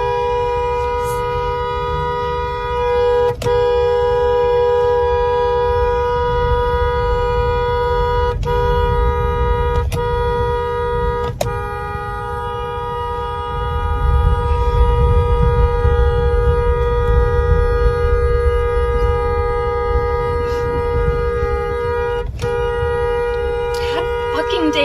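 Car horn held down continuously, two steady notes sounding together, broken only by a few split-second gaps. Beneath it runs a low rumble from the moving car, louder about halfway through.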